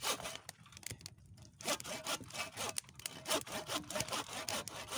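Hand saw cutting through a thin wooden branch with quick back-and-forth strokes, with a short pause about a second in.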